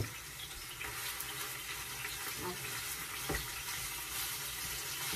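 Ground turkey sizzling steadily in olive oil in a frying pan, with a couple of light knocks as it is stirred with a wooden spoon.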